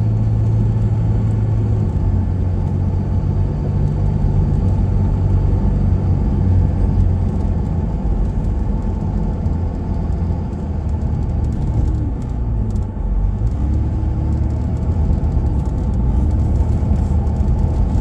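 A road vehicle being driven, heard from inside the cabin: a steady low rumble of engine and road noise.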